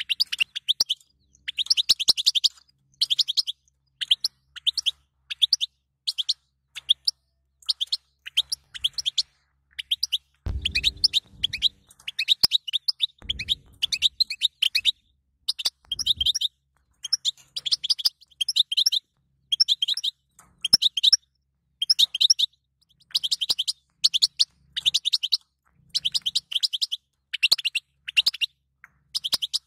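European goldfinch twittering: short bursts of rapid high chirps, about one every second. This is the goldfinch chatter that keepers play to get male goldfinches singing. A couple of soft low thumps sound around the middle.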